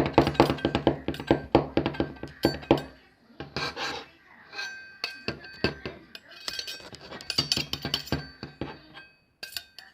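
Hard objects clicking and clinking together: a quick, dense run of taps for about three seconds, then sparser, quieter knocks.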